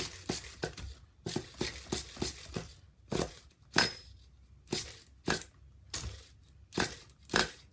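Pull starter on a small nitro RC engine yanked over and over, each pull a short scraping rattle, roughly one to two a second, without the engine catching. The owner blames the starter's one-way bearing.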